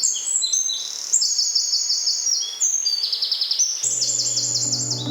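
Several songbirds singing at once, overlapping phrases of high, fast-repeated trilled notes. Music with sustained low notes comes in under the birdsong near the end.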